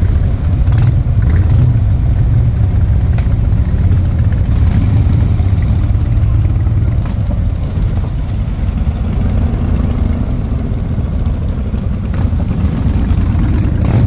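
Harley-Davidson V-twin motorcycle engine running at idle with a steady, deep exhaust note.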